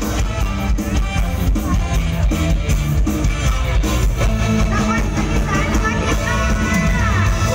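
Live Isan-style band music with a steady, driving beat, as the song's introduction. A bending lead melody line comes in near the end.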